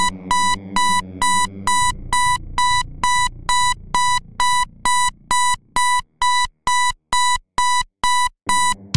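Breakdown of a self-produced electronic dance track: a high electronic beep repeating about two and a half times a second, like a phone alert tone, over a low sustained synth that fades away by the middle, leaving the beeps alone.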